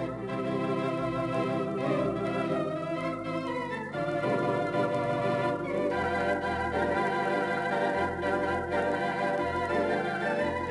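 Theatre organ playing sustained full chords with a wavering vibrato over a pedal bass line that steps from note to note; the harmony shifts about four seconds in.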